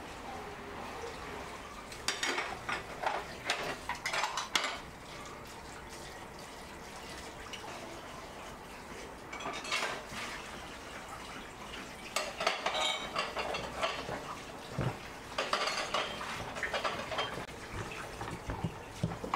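Metal utensil scraping and clinking against dishes and a glass cake stand while cream is spread over cake layers, in several short clusters of clicks and scrapes with quieter gaps between.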